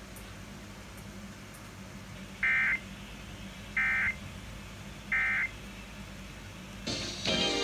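Emergency Alert System end-of-message (EOM) tones: three short bursts of SAME digital data, each about a third of a second and about 1.4 s apart, marking the end of the alert, heard over FM radio. Music starts near the end as regular programming resumes.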